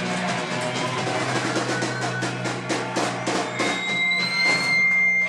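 Live rock band: the drummer plays a roll that speeds up over a held low bass note. A high steady whistling tone comes in over the last second and a half.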